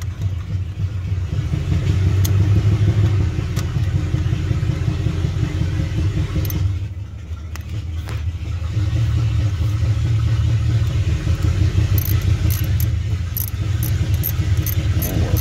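Car engine idling with a steady low rumble, easing off briefly about halfway through; a run of light clicks comes near the end.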